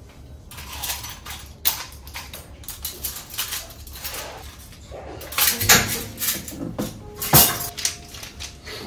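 Metal spoons and forks clinking and rattling as they are handled and sorted in a utensil holder. A run of short clatters, with the loudest ones a little past the middle and again about three quarters through.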